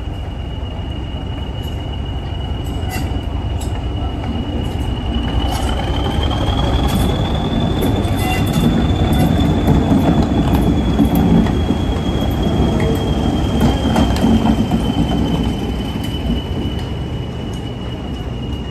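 Diesel locomotive and train running through a station, its rumble building to a peak midway and then fading away. A single steady high-pitched whine rises slightly partway through and eases back down, with scattered clicks from the wheels on the track.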